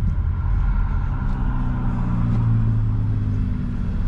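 Car engine and road rumble heard from inside the cabin, with a low engine hum that rises slightly in pitch from about a second in as the car moves slowly in traffic, then fades near the end.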